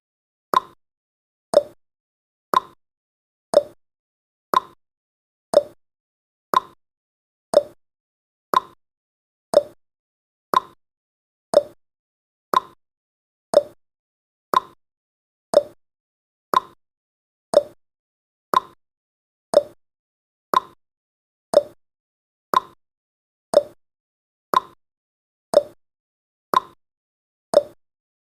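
Countdown timer tick sound effect: one sharp tick a second, alternating between a higher and a lower tick like a clock's tick-tock, ticking on steadily.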